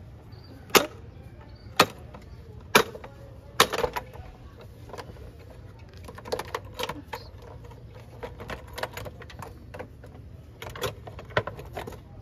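A series of sharp knocks and clicks from engine parts being handled: four loud knocks about a second apart, then a run of lighter clicks and taps, over a steady low hum.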